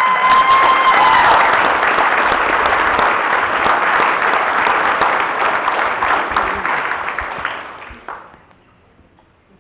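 Audience of banquet guests applauding, a dense patter of many hands clapping that dies away about eight seconds in. A single voice calls out over it briefly at the start.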